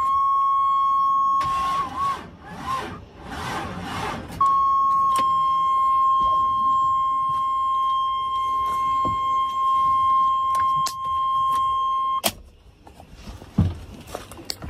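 Continuous high electronic warning tone from the 1998 GMC pickup's dash. It drops out for about three seconds shortly after it begins, then sounds again and stops abruptly with a click near the end.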